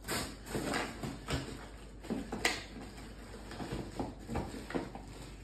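Paper and small objects being handled on a wooden table: scattered rustles and light knocks, with one sharper click about two and a half seconds in.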